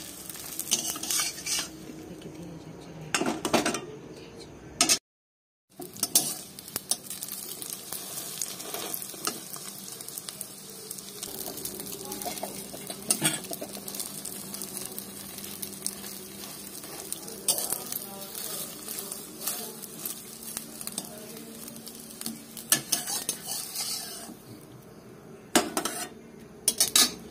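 Bread omelette sizzling as it fries in a steel wok, with a steel spatula scraping and clinking against the pan now and then.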